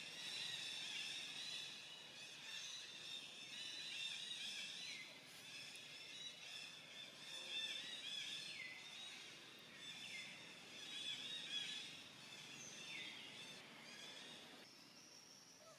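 Forest ambience: a continuous chorus of high-pitched wildlife calls, with a few downward-sliding whistles standing out now and then. The chorus thins out near the end.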